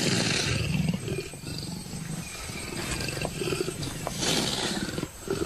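Leopards growling and roaring in a low, rasping, pulsing stream, with louder outbursts at the start and about four seconds in: an aggressive dominance display as a male and female leopard meet to court.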